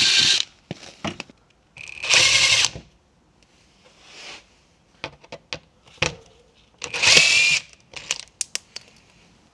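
Cordless drill with a long socket extension spinning out the small bolts that hold a plastic underbody panel: three short whirring runs, one ending about half a second in, one about two seconds in and one about seven seconds in, with small clicks and knocks between them.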